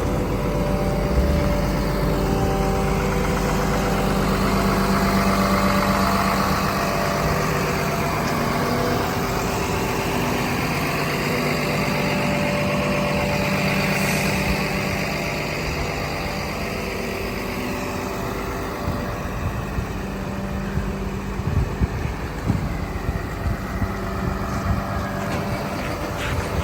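Komatsu D61PXi-24 bulldozer's diesel engine running steadily, its pitch dropping a little about seven seconds in. Near the end, irregular knocks sound over the engine.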